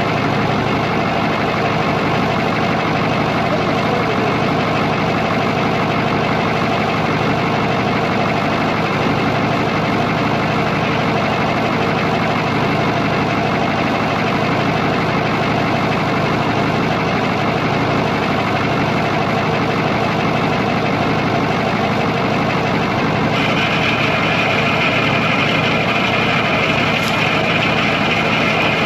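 Big diesel truck engine, a Cummins, idling steadily. A higher, steady hiss joins about 23 seconds in.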